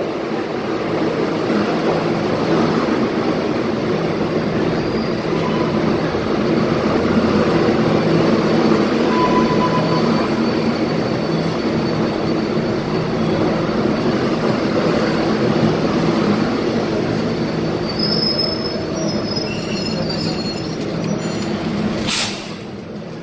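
R188 subway train pulling into the station and slowing to a stop, its wheels running loudly on the rails with thin high squeals. As it halts, a short sharp hiss sounds and the noise drops away.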